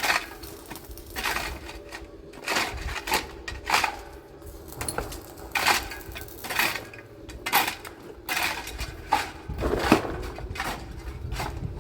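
Irregular metallic clinks and clanks, a dozen or so separate knocks, typical of steel parts and tools being handled and knocked together in metalwork.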